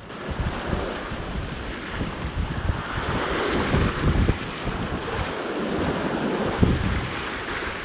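Sea waves washing and breaking against shoreline rocks, with gusts of wind buffeting the microphone.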